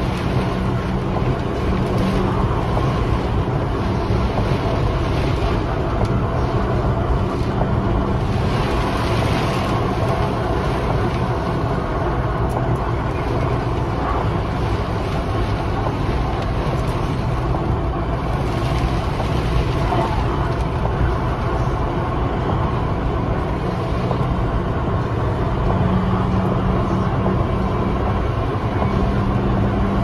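Steady low rumble of a plow truck driving and pushing snow, heard from inside the cab, with a steady drone at the start and again near the end.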